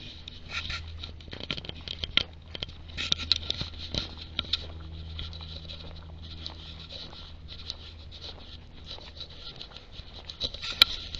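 Walking footsteps on the ground: irregular clusters of crackling, pattering steps with small scuffs, over a steady low hum.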